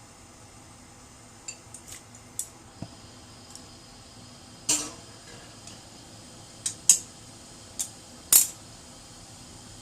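Kitchen utensils and dishes being handled, giving a string of separate sharp clinks and knocks. The loudest come about five, seven and eight and a half seconds in.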